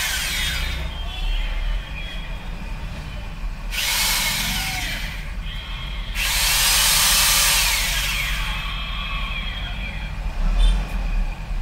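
Taj handheld electric drill triggered three times: a short burst at the start, a run of about a second and a half about four seconds in, and a longer run of two to three seconds about six seconds in, each ending in a falling whine as the motor spins down. A steady low hum runs underneath.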